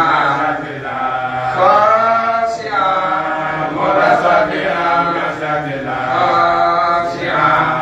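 A man's voice chanting an Islamic religious recitation in long, melodic, held lines, with short breaks between phrases.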